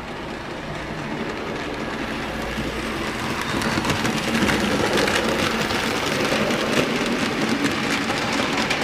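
Model train, a steam-outline locomotive hauling goods vans, running over the track and pointwork with a rattling clickety-clack of wheels on rail joints. It grows louder from about three seconds in as it comes close, then eases slightly near the end.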